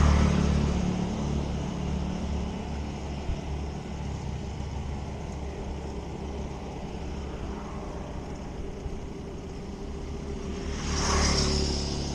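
Motorbike and scooter traffic passing close by on a road, heard from a moving bicycle: one passes loudly at the start and fades, and another vehicle swells up and goes by about eleven seconds in, over a steady low road rumble.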